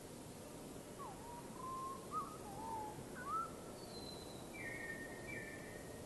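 A bird whistling a short run of sliding notes, then a few higher, steadier whistles near the end, faint over a steady background hiss.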